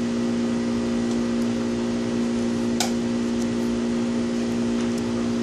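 Steady mechanical hum of a running motor, with a buzzing low tone and overtones that never change, and one sharp click nearly three seconds in.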